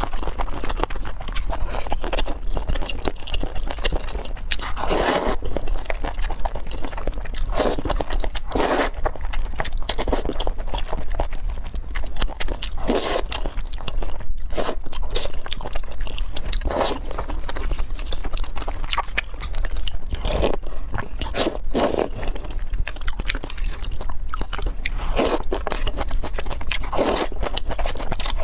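Close-miked slurping and chewing of noodles from a bowl of soup, in short irregular bursts.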